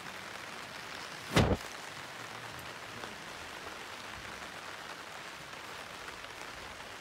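Steady outdoor hiss while a crowd stands silent, with one brief loud thump about a second and a half in.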